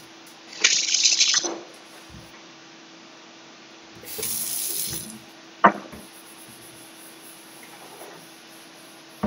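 Water running from a kitchen tap into a stainless steel sink in two short bursts of about a second each, rinsing the freshly scrubbed sink. A sharp knock comes a few seconds later and another near the end.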